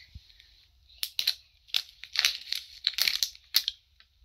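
Wrapping on an LOL Surprise doll ball being crinkled and torn open by hand: a quick run of sharp crackles starting about a second in.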